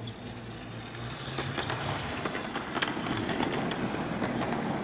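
Model Class 158 train running past close by: the motor's steady hum and the wheels clicking on the track, growing louder as it approaches, with sharp irregular clicks from about a second and a half in.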